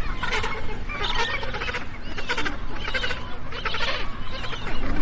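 Magellanic penguins calling: a run of harsh, rasping honks, about one a second.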